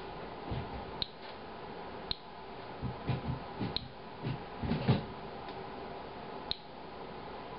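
Inspector Alert Geiger counter clicking sparsely: four single clicks, one to two and a half seconds apart, each a counted radiation event at a low rate that the tester takes for possibly just background. Some low muffled thuds sound in the middle, the loudest about five seconds in.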